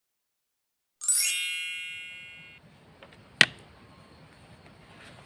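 A bright bell-like chime about a second in: many high ringing tones that fade and then cut off after about a second and a half. A single sharp click follows, over a faint background hiss.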